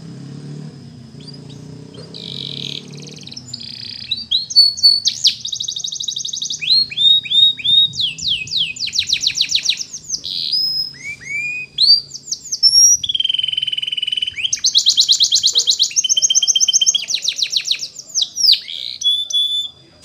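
Domestic canary singing a long, varied song: fast trills of repeated notes, rising and falling whistled sweeps, and a few held tones. A low rumble sits under the first few seconds.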